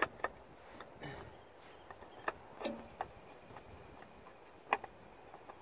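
Scattered light clicks and knocks of an oil filter canister and hands bumping against engine parts as the filter is brought up to its mount, with a sharper knock near the end.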